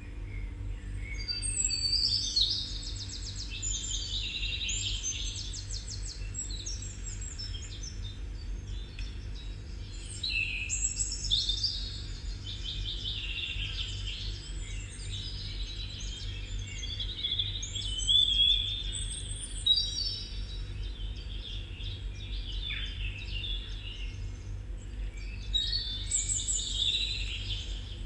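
Songbirds singing: phrases of rapid high trills and chirps with short pauses between them, over a steady low hum.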